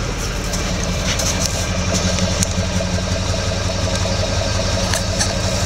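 2004.5 Duramax 6.6 LLY V8 turbodiesel idling roughly. The owner asks whether a bad injector is the cause.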